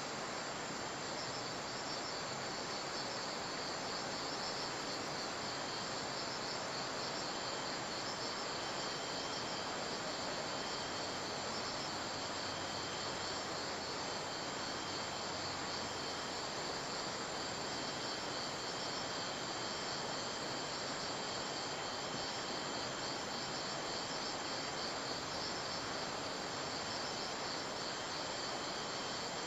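Steady chorus of chirping insects, their pulsing high notes over an even hiss.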